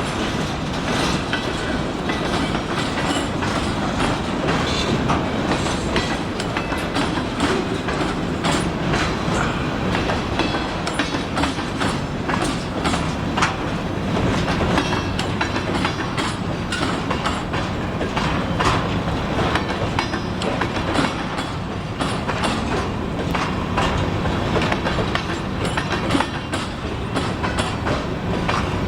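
Union Pacific local freight train rolling by, a steady rumble with wheels clicking and clattering over the rail joints and switches.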